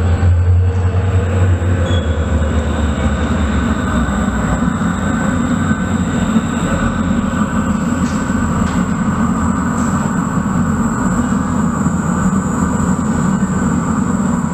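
Train approaching through a railway tunnel: a steady, loud rumble that echoes in the tunnel, with a faint high whine over it.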